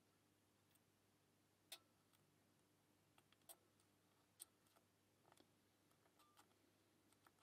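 Faint, irregular small metallic clicks of a lock pick and tension wrench working the pins of a pin-tumbler lock, a lock the picker says feels like it has a serrated pin.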